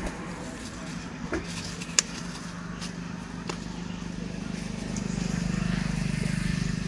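Motorcycle engine idling with a steady low hum that grows louder near the end. A few sharp clicks or taps come through, the loudest about two seconds in.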